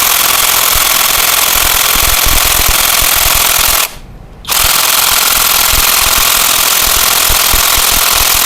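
Dagmara 800 Nm impact wrench hammering continuously on a size-24 nut, stopping briefly about four seconds in and then hammering again; the nut does not come loose and is called far too tight.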